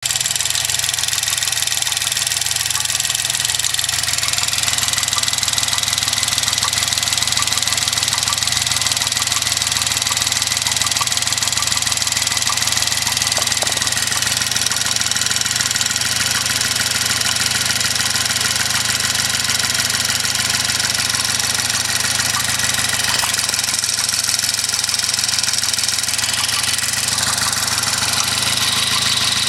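Car engine running steadily, with a high steady whine over the hum that shifts slightly in pitch now and then: an unusual noise the owner cannot place.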